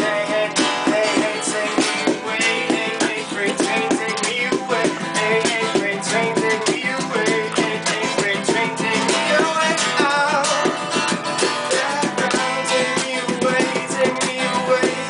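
Acoustic guitar strummed live in a song, playing continuously.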